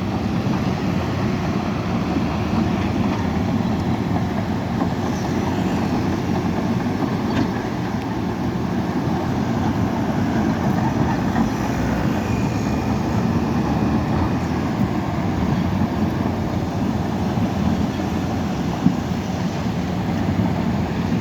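Heavy diesel earthmoving machinery running steadily, a dozer and backhoe loaders at work.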